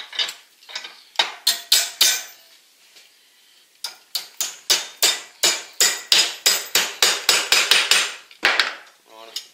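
Hammer blows on a thin steel rod clamped in a bench vise, bending its end over into an L. A few blows in the first two seconds, a short pause, then a quicker run of sharp metallic strikes, about three or four a second, that stops near the end.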